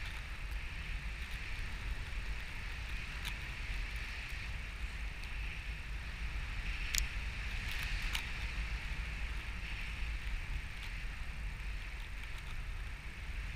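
Wind rushing over the microphone of a camera on a paraglider in free flight: a steady low rumble with a hiss above it. A few brief ticks come about halfway through.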